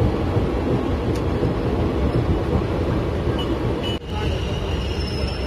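Steady rumble of a moving passenger train heard from inside the coach. The sound drops out for a moment about four seconds in, then a thin high steady whine joins it.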